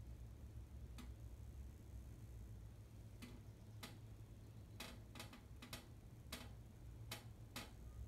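Faint, irregular sharp clicks, about ten of them, over a low steady hum.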